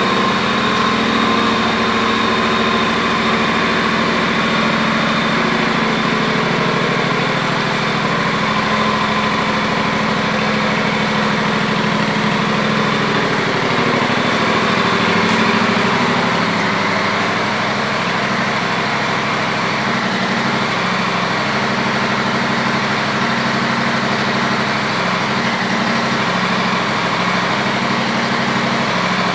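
Honda CTX700's 670 cc parallel-twin engine idling steadily.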